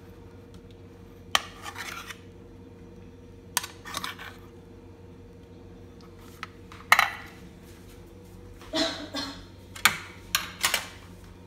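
Scattered metal clinks and scrapes on aluminium idli-style mould plates as steamed dhokla are prised out of the cups, about seven short bursts, over a steady low hum.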